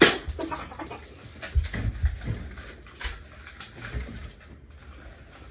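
Sharp clicks and snaps of spring-powered BB guns being cocked and fired, the loudest right at the start, with a few low thumps of movement between them.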